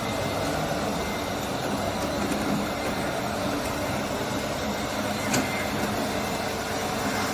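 Scale RC construction machines running: a steady whir of small electric motors and gears, with one sharp click about five seconds in.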